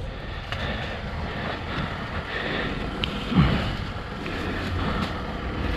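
Wind buffeting the microphone, with faint crinkling and clicks as a plastic kite and its tangled line are handled.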